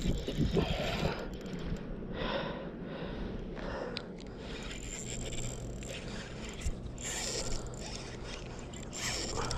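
Spinning reel being cranked to wind in line, its gears whirring and rattling with each run of turns.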